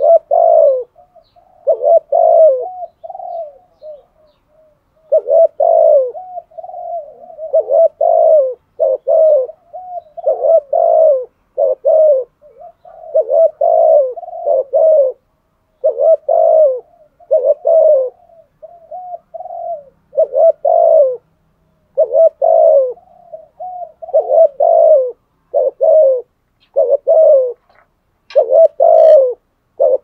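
Spotted dove cooing over and over in quick, short phrases with hardly a pause: the rapid 'gù' contest cooing that the birds use when challenging a rival.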